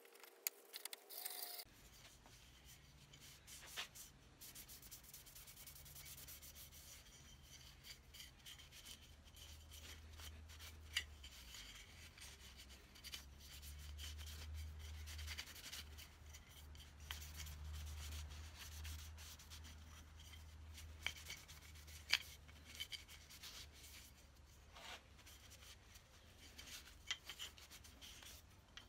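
Faint rubbing of a cloth rag being worked in the hands, with a few scattered light clicks and knocks.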